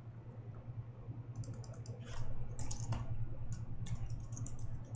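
Typing on a computer keyboard: quick runs of key clicks begin about a second in, over a steady low hum.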